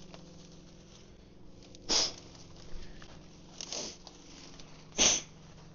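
Dry grass and brush swishing as they are pushed through: a few short rustling bursts, the loudest about two seconds and five seconds in.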